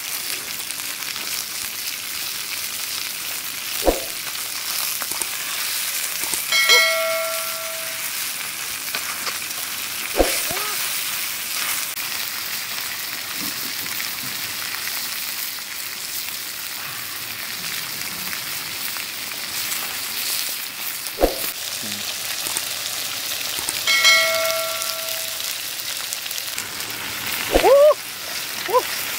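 Blood cockles frying in an iron wok over a wood fire: a steady sizzling hiss, broken by a few sharp knocks of shells or the wooden stirring stick against the wok. Twice a short ringing tone sounds for about a second.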